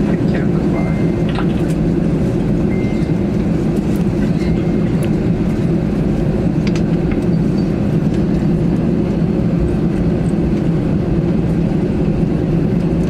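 Steady low rumble inside the passenger cabin of an Airbus A321 airliner, holding an even level throughout.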